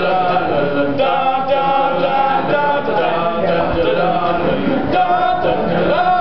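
Four-man a cappella group of teenage boys singing together, with held and gliding sung notes over a steady low vocal backing.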